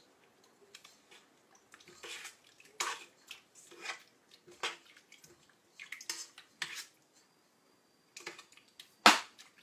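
A utensil stirring and scraping in the stainless steel bowl of a stand mixer, dissolving fresh yeast and sugar in warm milk: irregular scrapes and clinks against the metal. One sharp clink near the end is the loudest.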